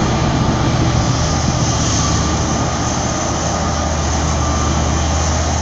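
Heavy machinery's diesel engine running steadily with a deep, even drone.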